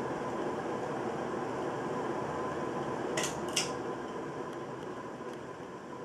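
1999 Casablanca Veranda ceiling fan running steadily, a whir of motor and moving air with a faint steady tone; its bearings are in poor shape. About three seconds in come two sharp clicks close together, and the fan's sound then slowly eases.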